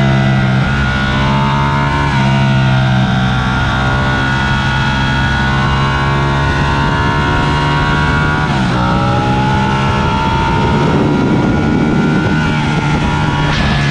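Sport motorcycle engine running at steady riding speed, with wind rush; the engine note dips and picks back up briefly about two seconds in and again around eight seconds in.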